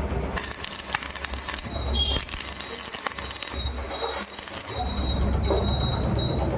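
Electric arc welding: the arc crackles and hisses in stop-start runs over the hum of the welding machine.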